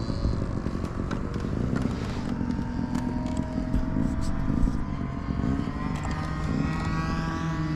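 Model aircraft petrol engine running steadily, its pitch creeping slowly upward over the last few seconds.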